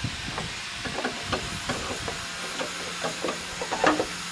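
Irregular light clicks and knocks of a clutch master cylinder being handled and fitted onto its pushrod, the loudest cluster near the end, over a steady background hiss.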